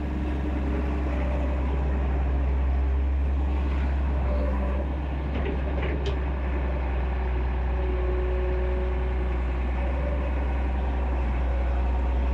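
Excavator's diesel engine running steadily with a low rumble, with a few brief clicks about halfway through.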